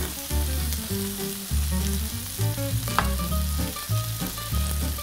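Chicken and asparagus frying in butter in a nonstick pan, a steady sizzle with a spatula moving the food around and one sharp tap about three seconds in. Background music with a bass line runs over it and is the loudest part.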